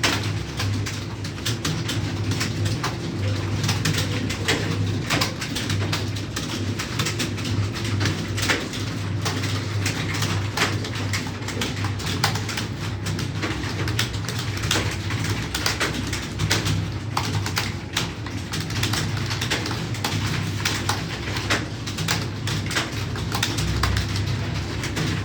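Many computer keyboards clattering together, dense irregular keystrokes from a group of typists taking a timed typing test, over a steady low hum.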